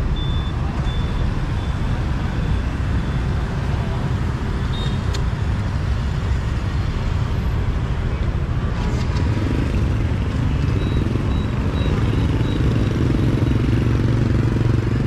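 City street traffic: motorbike and car engines and tyres in a continuous rumble, swelling about two-thirds of the way through as a motorbike passes close. A repeated high beep sounds in the first couple of seconds and again briefly later.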